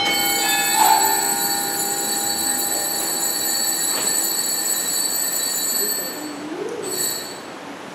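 A bell is struck once and rings, a cluster of high ringing tones that die away over about six seconds. It is struck again briefly near the end.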